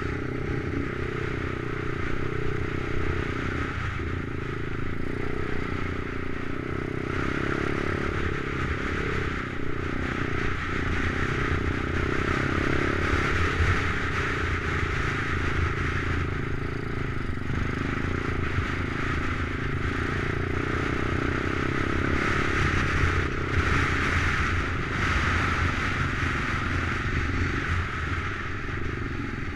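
Single-cylinder four-stroke 125cc Lifan engine of a Stomp pit bike running at fairly steady revs under way, the new engine being run in.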